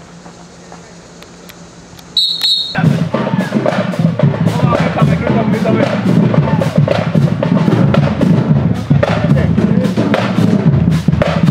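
Low background hum, then a short high-pitched tone about two seconds in, followed by loud voices and music with sharp percussive clicks and drum hits.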